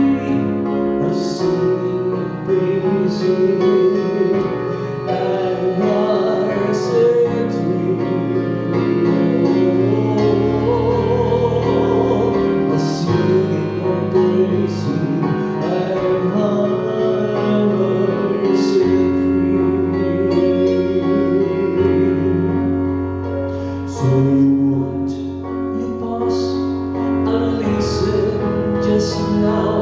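Live worship band music for a gospel song: held keyboard chords over a changing bass line, with short high hits every second or two.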